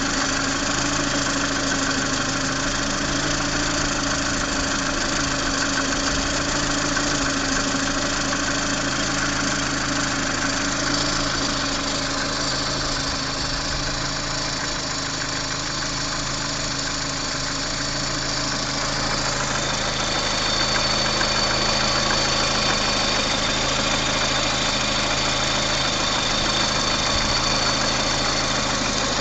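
Lada Priora's VAZ-21126 1.6-litre 16-valve four-cylinder engine idling steadily with a knock from the piston and connecting-rod group.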